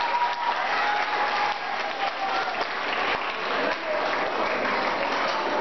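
An audience of schoolchildren applauding, with steady clapping throughout.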